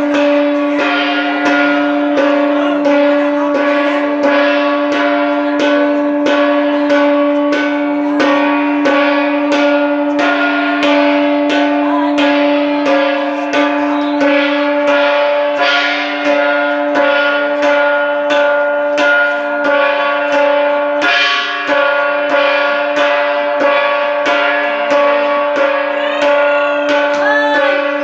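Hand-held gong of a Hmong shamanic ritual (ua neeb), beaten in a fast, steady rhythm, roughly three strokes a second, its tones ringing on between strokes. It is the gong that drives the shaman's trance. Its lowest ringing tone drops out about halfway through.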